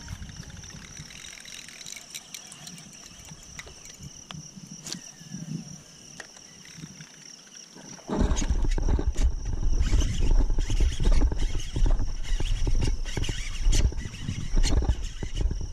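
Insects keep up a steady high drone with scattered clicks. About eight seconds in, loud low rumbling and knocking starts suddenly and goes on: handling noise on the camera's microphone as it swings around.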